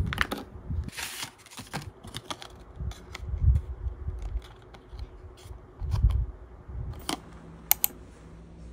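Small jewelry packaging being handled: clear plastic sleeves crinkling, with scattered light clicks and taps and a few dull bumps as earrings and cards are picked up and set down.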